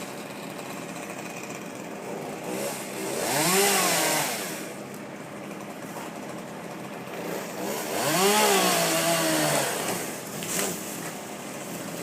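Chainsaw revved up twice, the engine pitch rising, holding and dropping back each time, running quieter in between.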